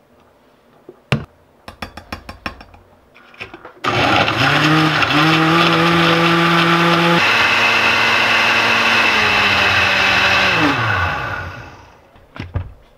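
Countertop blender switched on about four seconds in, its motor running loud at a steady pitch while blending a protein shake. The pitch shifts partway through, and then the motor is switched off and winds down with a falling pitch. A few sharp knocks and clicks come before it starts.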